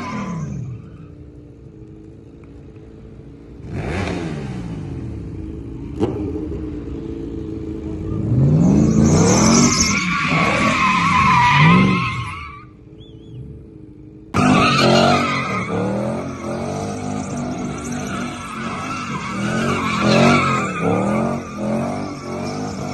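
Mercedes-Benz W124 E500's swapped M113 V8 revving up and down hard while the tyres squeal in a drift. The sound changes abruptly about 14 seconds in, after which the engine rises and falls in pitch in quick repeated revs.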